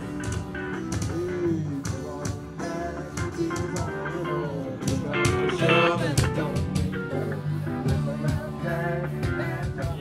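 Amplified band playing blues-rock: guitar over a steady drum beat, loudest about halfway through.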